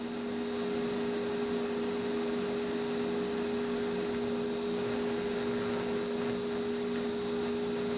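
Steady machine hum with an even hiss beneath it, holding level throughout.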